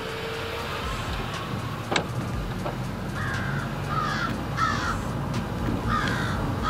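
Harsh bird calls, cawing several times in a series from about three seconds in, over the low hum of a car driving slowly. A single sharp click comes about two seconds in.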